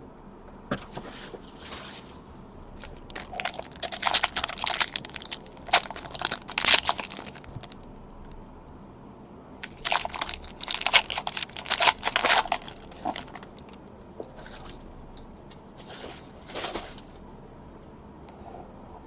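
Foil trading-card pack wrappers crinkling and tearing as packs are opened. There are two main spells of rustling, one starting about three seconds in and one about ten seconds in, with fainter rustles near the end.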